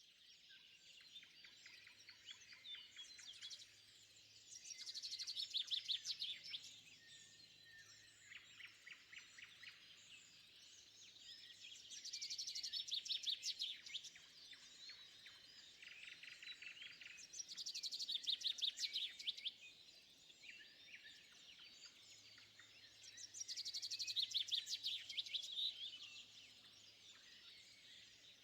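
Mixed songbirds singing together in spring woodland. One bird repeats a loud, rapid trilling phrase four times, about every six seconds, over the steady chatter of the others.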